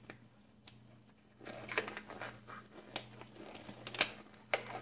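Scattered light clicks and taps with some rustling from gloved hands handling things on a workbench, busier in the second half, over a faint steady hum.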